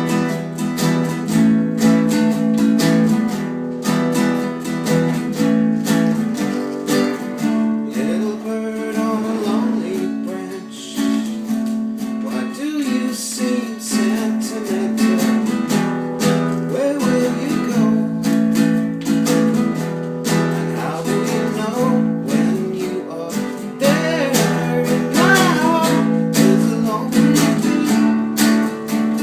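Acoustic guitar being strummed in a steady rhythm, playing chords.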